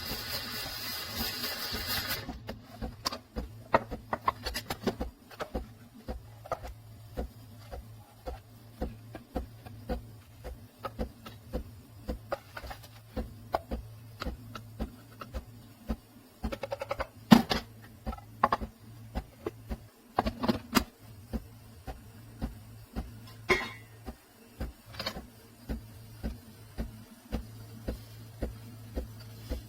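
Espresso machine running with a steady low buzz, typical of its vibratory pump while a shot pulls, under many scattered clicks and clinks. A rushing noise stops about two seconds in.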